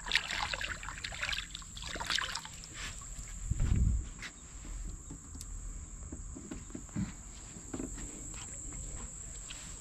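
Knocks and rustles of fishing gear being handled on the deck of a small fishing boat, with a heavier low thump about four seconds in, over a steady high insect drone.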